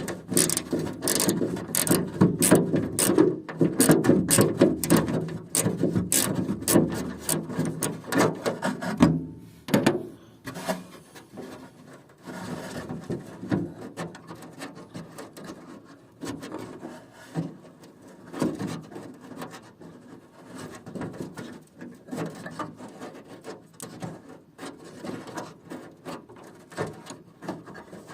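Small hand ratchet clicking rapidly as it turns out the 8 mm screws holding a car door handle. After about nine seconds the clicking becomes sparser, with scraping and rubbing of metal parts being worked loose.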